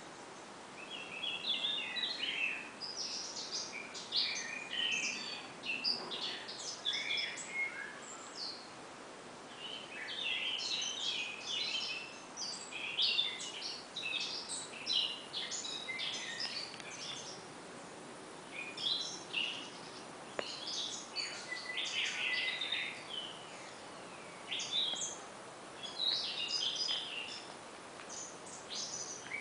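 Several songbirds chirping and singing in quick, overlapping phrases of high notes, with short pauses between phrases.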